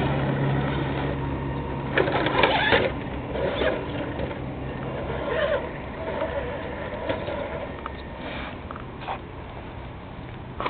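Small electric motor and drivetrain of a Tamiya TLT-1 RC rock crawler whirring as it climbs over rocks, with scattered clicks and crunches of tyres and chassis on stone, the loudest about two seconds in. The whir grows fainter as the truck moves away.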